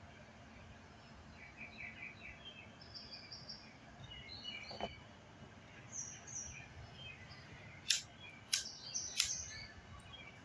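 Birds chirping and calling over a faint steady outdoor background, with three sharp clicks in quick succession about eight seconds in, louder than the birds.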